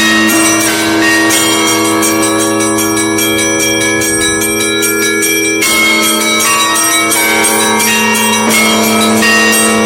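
Russian Orthodox church bells ringing together: quick strikes of the small bells over the steady hum of the large bells. The small bells thin out in the middle, then come back in densely a little past halfway.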